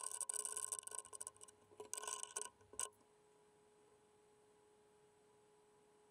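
Metal clinks and scrapes from fitting and tightening a cutter in the CNC spindle's collet nut: irregular clattering with a faint metallic ring through the first three seconds, then only a faint steady hum.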